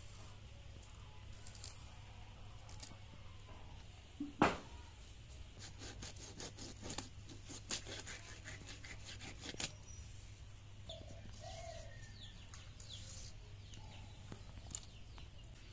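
Quick sharp clicks and scrapes of fish and vegetables being cut against an upright boti blade, in a run of several strokes a second, with one louder knock about four seconds in.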